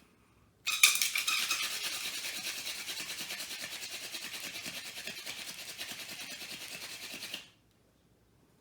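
Hand drill fire by friction: a tall ironweed spindle spun fast between the palms, grinding in the notch of a white pine fireboard in a rapid, even back-and-forth rhythm. It starts suddenly, is loudest at the first strokes, and stops abruptly after about seven seconds, when the hands stop once the ember has formed.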